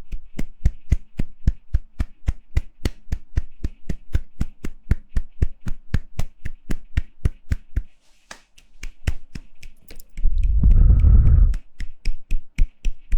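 Rapid, even hand claps or palm slaps close to the microphone, about five a second, with a brief pause about eight seconds in. A loud low rumble, a bump or brush against the microphone, interrupts them for about a second and a half near the end before the slapping resumes.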